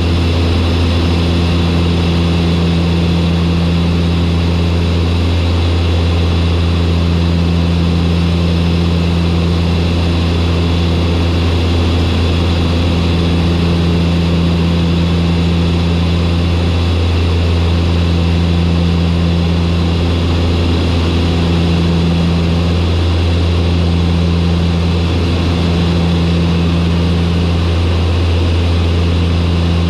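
Turboprop aircraft's engines and propellers running steadily on final approach: a loud, constant low drone with a higher tone above it that wavers slightly.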